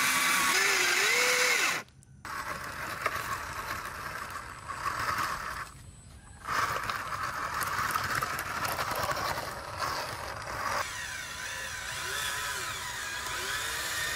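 Whine of the small electric motors and gearboxes of radio-controlled model trucks, rising and falling in pitch with speed, over a hiss. The sound cuts out abruptly twice as the clips change.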